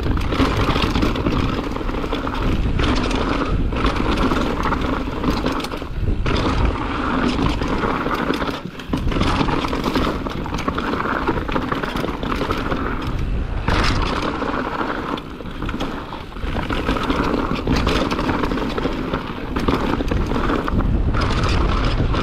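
Mountain bike descending a dirt trail at speed: a steady rush of tyre and wind noise with the bike rattling and knocking over rough ground, easing briefly about nine seconds in and again around fifteen seconds.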